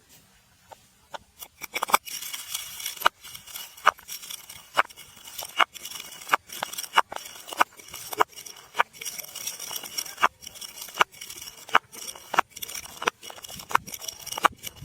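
Glass bottle being struck and crushed: a few light clicks, then from about two seconds in a steady high crackle of breaking glass, with sharp hits about every 0.7 seconds.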